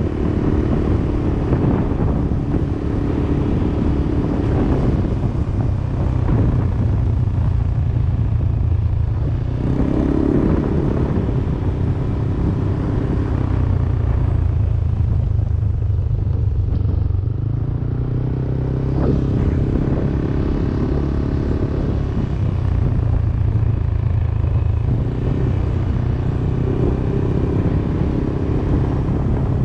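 Yamaha Aerox 155 scooter's single-cylinder engine running steadily under way, its pitch shifting a few times as the speed changes, over road and wind noise.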